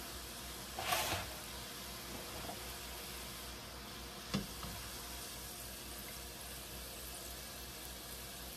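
Hot oil sizzling steadily in a wok as samosas deep-fry. A brief louder burst comes about a second in, and a sharp knock a little past four seconds.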